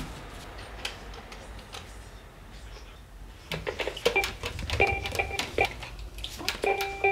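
Children's toy electronic keyboard being played: a run of plastic key clicks about halfway through, then several short beeping notes near the end.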